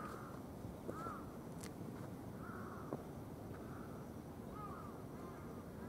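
Crows cawing in the distance, about five short calls spaced a second or so apart, with a few short sharp clicks in between.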